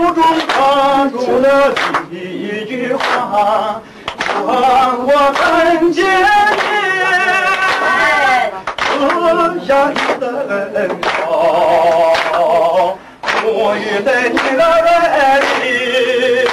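A man singing a Christian hymn of thanks in Chinese, in long phrases with held, wavering notes.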